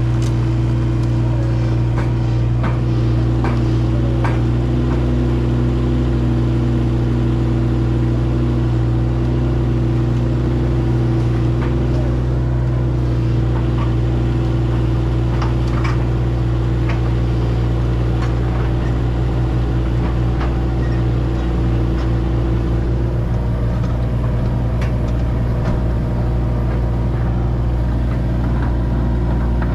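New Holland E17C mini excavator's diesel engine running steadily as the machine drives down off its trailer, with a few sharp knocks along the way.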